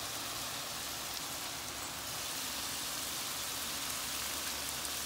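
Ground turkey sausage sizzling steadily in a frying pan on the stove, with a fine continuous crackle.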